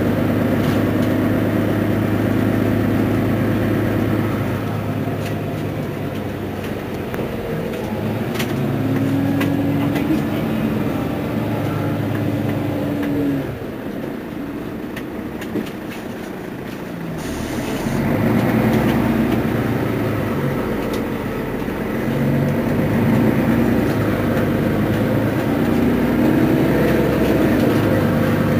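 Mercedes-Benz Citaro G C2 articulated city bus idling at a stop, its diesel engine running with a steady low hum. A higher steady whine joins for a few seconds, the sound drops back for a few seconds around the middle with a single click, then swells again.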